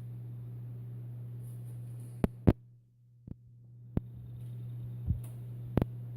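Desktop PC's steady low hum cuts out right after two sharp clicks about two seconds in. After another click it comes back, building up over about a second as the machine powers back on, with a few more clicks. This is a PC that is being switched off and on while it fails to start properly.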